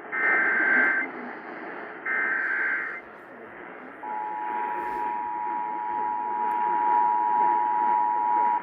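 Emergency Alert System tones received on AM radio over steady static hiss: two one-second bursts of SAME header data tones, then, about four seconds in, the two-tone attention signal held steady until it cuts off at the end.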